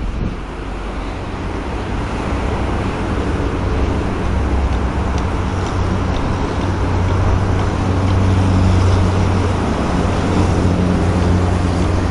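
City road traffic rumbling steadily, with a deep engine drone that grows louder from about the middle and stays strong.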